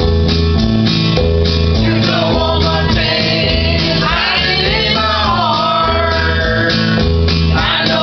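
Voices singing a song over guitar accompaniment, the sung melody rising and falling over steady repeating low chords.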